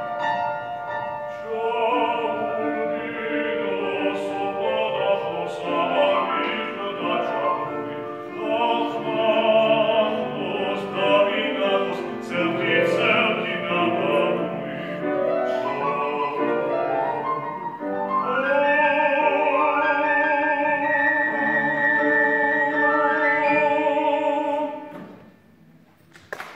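A male opera singer sings with vibrato over grand piano accompaniment. The song ends on a long held note that stops a little before the end.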